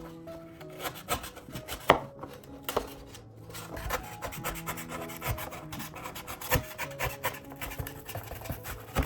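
Repeated rubbing and scraping strokes with short sharp clicks, over quiet background music with held notes.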